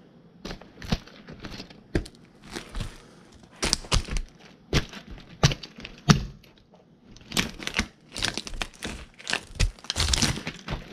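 Chippewa logger boots stomping on toy cars again and again: irregular heavy thuds mixed with the cracking and snapping of the toys breaking underfoot.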